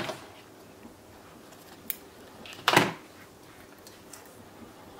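Small handling noises from threading an overlocker by hand with tweezers: a faint sharp click about two seconds in and a brief louder knock-like rustle just under three seconds in, against a quiet room.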